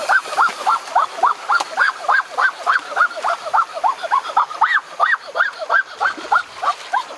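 Animal calling: a fast, steady run of short honking calls, about three to four a second, each rising then falling in pitch.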